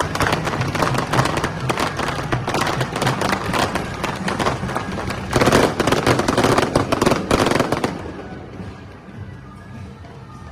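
Fireworks crackling in a dense, rapid run of pops, loudest a little past halfway and dying away about eight seconds in.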